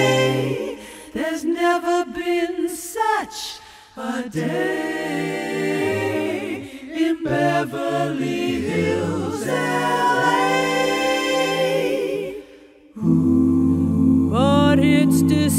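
Background music of a choir-like a cappella vocal piece, sung in long held notes, with a few short breaks.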